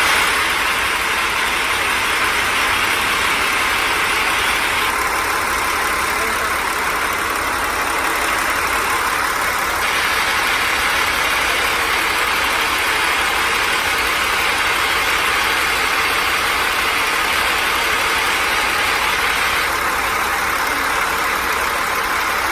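Truck engine running steadily, a loud even noise that starts and stops abruptly.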